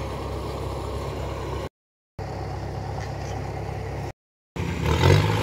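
Kubota DC105X combine harvester's diesel engine running steadily with a low hum. The sound drops out to total silence twice, and comes back louder after the second break.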